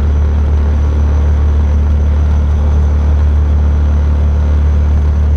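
Patak Motors prototype's 15 kW combustion engine running steadily at cruising speed, with a strong steady low drone mixed with road and wind noise.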